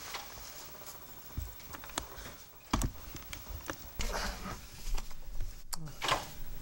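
Paper ballot slips being handled and shuffled on a table, with a few light knocks and short rustles.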